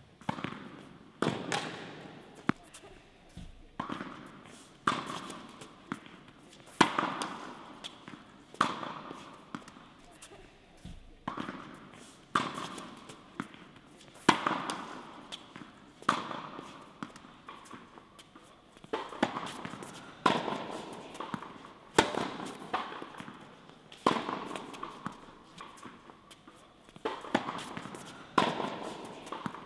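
Tennis balls struck by rackets and bouncing on the court, a sharp pop about every second, each ringing out in the echo of an indoor tennis hall.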